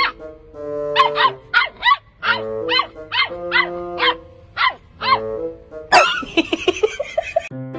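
A puppy yipping at a larger dog: about a dozen short, high-pitched barks in quick succession. About six seconds in, a louder, harsher burst as the bigger dog snaps back at it.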